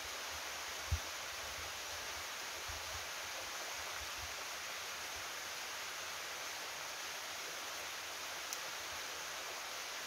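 Steady rush of a waterfall cascading down a rock slab, heard from across the valley as an even hiss. A brief low thump about a second in.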